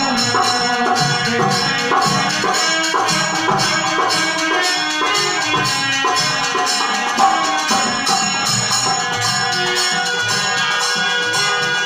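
Instrumental passage of a Bhojpuri purbi folk song: steady rhythmic accompaniment with jingling percussion, no singing.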